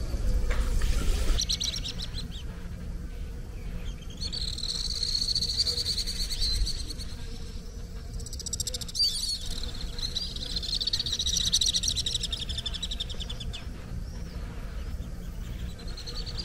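Birds chirping in high trills, each run lasting a few seconds, over a low steady rumble.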